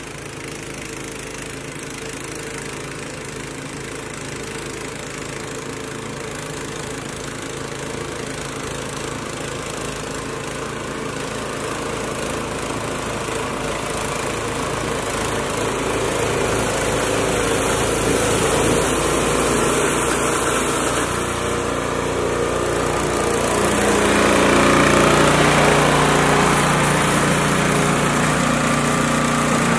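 Gas-engine two-stage snowblower running steadily under load while clearing snow, growing louder as it comes closer.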